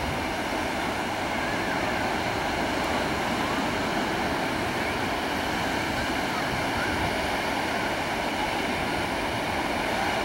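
Ocean surf breaking and washing in, a steady, even noise of churning white water.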